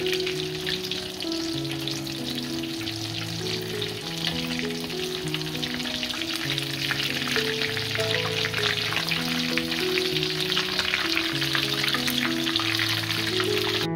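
Breaded pork cutlets deep-frying in hot oil in a wok: a dense, steady crackling sizzle of bubbling oil. A light background music tune plays underneath.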